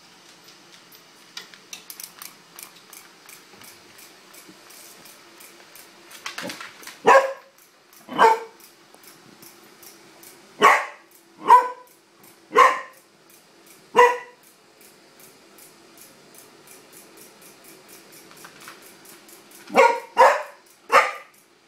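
A Welsh corgi barking at a wind-up toy horse: about ten sharp single barks in three bouts, a pair, then four, then three near the end. Under the barks the toy's clockwork ticks steadily as it walks across the tile floor.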